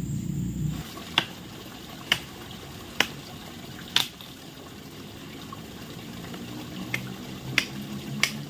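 A hooked fish splashing at the pond's surface while being played in: sharp slaps at irregular intervals, four roughly a second apart, then after a pause three more in quicker succession, over a faint steady watery hiss.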